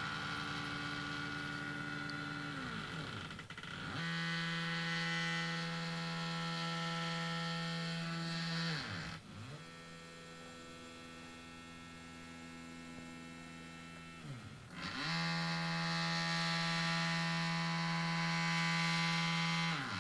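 Stepper motors of a homemade XY table whining as they drive the axes through several moves. The pitch holds steady during each move and dips down and back up about every five seconds as one move slows and the next speeds up.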